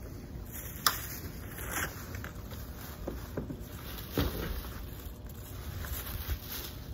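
Cardboard box and plastic wrapping tossed back into a metal dumpster: a sharp knock about a second in, rustling and crackling plastic, and a heavier thud about four seconds in as the box lands, over a low steady rumble.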